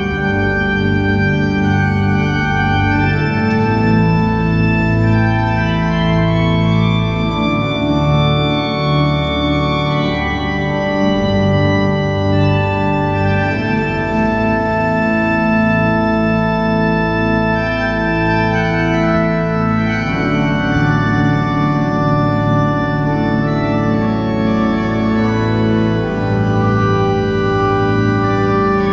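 Organ music: slow, long-held chords that change every few seconds, without singing.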